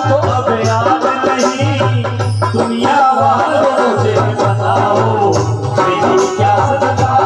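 A male voice sings a Hindi bhajan through a microphone and PA, over instrumental accompaniment with a steady low bass and a running drum rhythm.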